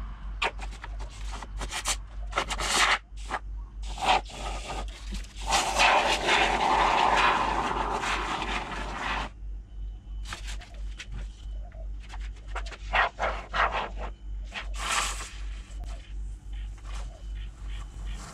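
Can of expanding foam filler spraying foam into a hollow crayfish shell: one long hiss of about four seconds in the middle, with short scrapes and clicks from the can and the hard shell being handled before and after it.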